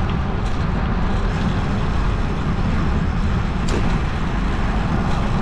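Wind buffeting a GoPro's microphone while a road bike rolls along a paved path: a steady low, flickering rumble with a hiss above it.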